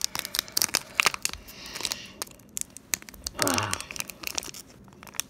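Pokémon booster pack wrapper crinkling and tearing as it is worked open by hand: quick crackles and rips, with a short vocal sound near the middle.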